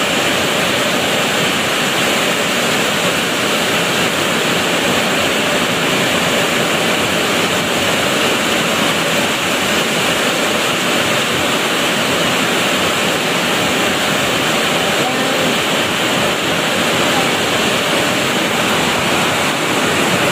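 Heavy rain pouring down steadily: a loud, even rushing hiss that does not let up.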